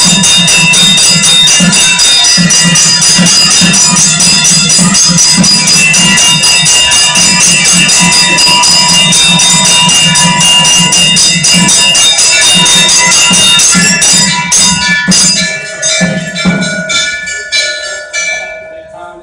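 Temple bells rung rapidly and continuously, with a low pulsing beat underneath. About fifteen seconds in the ringing stops, and a few separate bell strokes ring out and fade.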